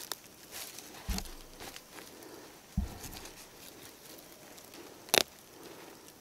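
Fingers and a small pointed digging tool scraping and picking through dry, crumbly soil while a ginseng root is dug out: scattered scratches and soft knocks, with one sharp click about five seconds in.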